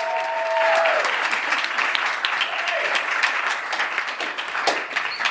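Theatre audience applauding, with a long whoop that breaks off about a second in.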